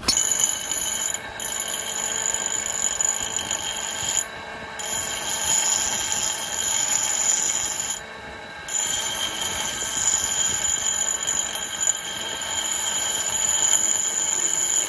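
Electric bench grinder's abrasive wheel grinding the thread off a steel aircraft bolt. A steady high-pitched whine with grinding hiss dips briefly a few times, about one, four and eight seconds in.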